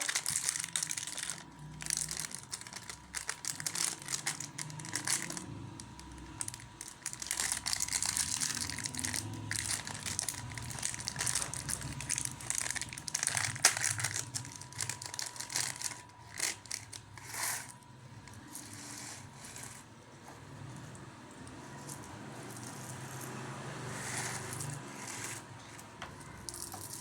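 Plastic snack packaging crinkled, crushed and torn open by hand, in irregular bursts of crackling rustle.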